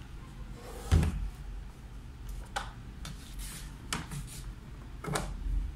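Plastic meal-tray lids being handled and lifted off a plastic tray: a few separate clicks and knocks, the loudest about a second in.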